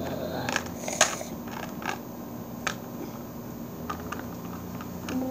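Round plastic target with a hinged stand being handled on a pebbled concrete floor: scattered clicks and light knocks, the sharpest about a second in, over a steady low hum.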